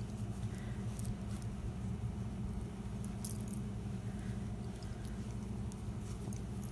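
Fabric pieces being handled and shifted on a worktable: a few faint, brief rustles and light taps over a steady low hum.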